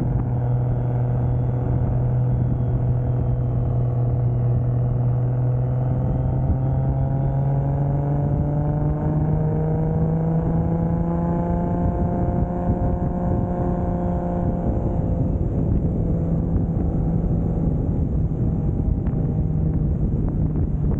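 Toyota Soarer's single-turbo 2JZ straight-six running at steady cruise with road noise. The engine note edges up in pitch about six seconds in, then holds steady.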